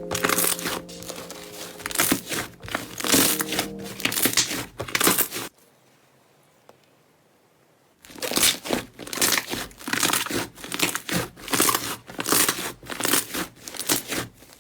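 Slime being squeezed and worked by hand, giving quick runs of crackling, crinkling pops, broken by about two and a half seconds of near silence in the middle.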